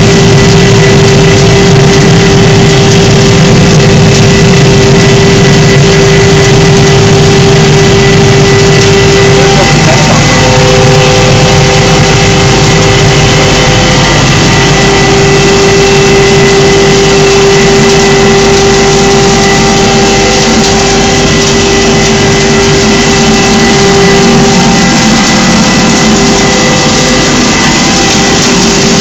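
Wood sawdust pipe dryer running: loud, steady noise from its blower fan and electric motor, with a constant humming tone over it.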